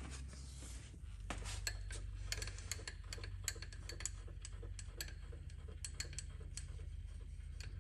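Vertical milling machine table being traversed along its axis, with many irregular light metallic clicks and ticks over a steady low hum.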